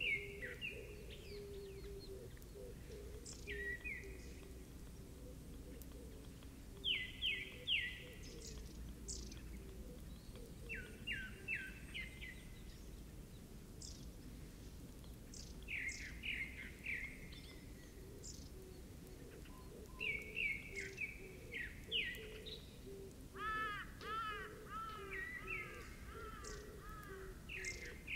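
Songbirds singing and calling: short chirped phrases every second or two, with a quick run of arched notes near the end. A low steady hum runs beneath.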